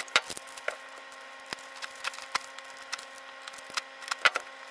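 Utility knife blade cutting through a clear plastic bag, the film crackling in scattered, irregular sharp clicks.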